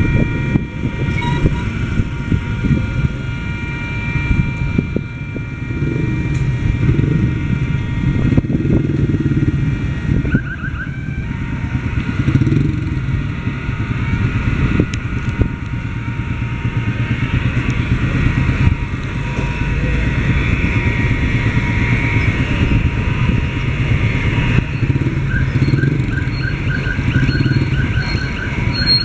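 Motorcycles and road traffic running and idling at a railway level crossing, under the crossing's electronic warning siren. The siren holds steady tones for the first ten seconds or so, then sounds a rapid pulsing beep starting near the end.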